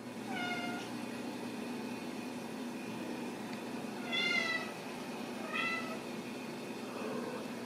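Ragdoll kittens meowing: about four short, high-pitched meows, the loudest about four seconds in and the last faint, over a steady low hum in the room.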